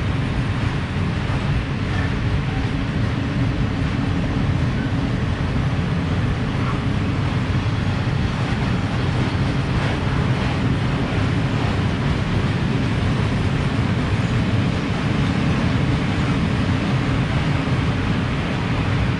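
A long freight train of open coal wagons rolling past on the rails: a steady low rumble of wheels on track, with a few faint clicks.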